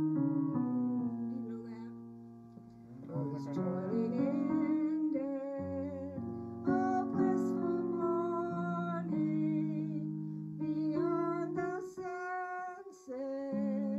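A hymn sung with vibrato by an elderly woman, accompanied on piano.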